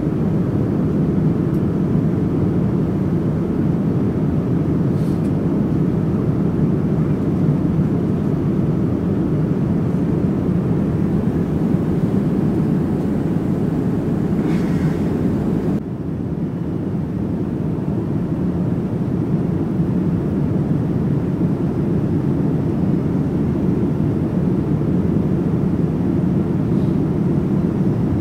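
Steady cabin noise of a Boeing 787-9 airliner in flight: a low, even rush of airflow and engine noise. It dips slightly in level about halfway through.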